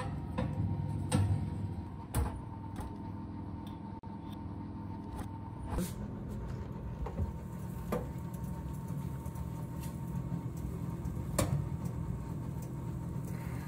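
Steady low hum of a running oven, broken by several sharp knocks and clatters as the oven door and a glass pie dish are handled.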